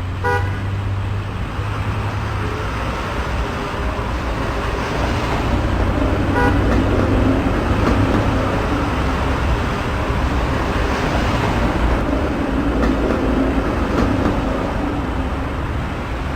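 Steady road-traffic and motor-vehicle noise, with two short horn toots: one just after the start and one about six and a half seconds in.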